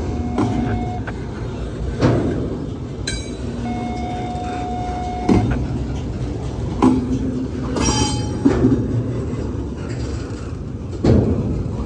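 Double-stack intermodal freight train's container cars rolling past: a steady rumble broken by heavy knocks every second or two as the wheels cross rail joints, with a few brief high squeals.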